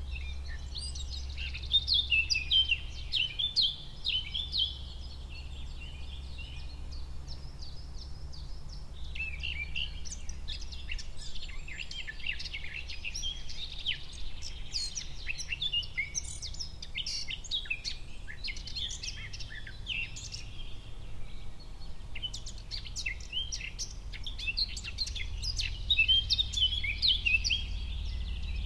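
Birdsong: several small songbirds chirping and trilling in overlapping phrases, busiest near the start and near the end, over a steady low rumble.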